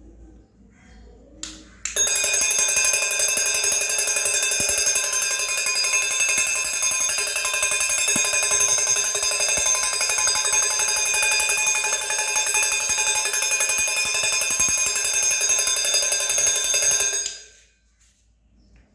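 Homemade battery-powered electric alarm bell ringing loudly and continuously with a fast rattling ring. It starts about two seconds in, just after a click, and cuts off shortly before the end.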